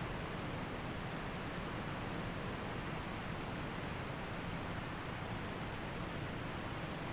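Waterfall water rushing and splashing in a steady, unbroken roar with no change in level.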